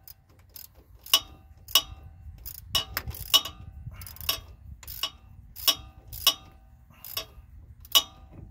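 Ratcheting socket wrench worked in short strokes on a starter mounting bolt: about a dozen sharp, ringing metallic clicks, one every half second or so, unevenly spaced. The bolt is not drawing tight because the 12-point socket is slipping on it.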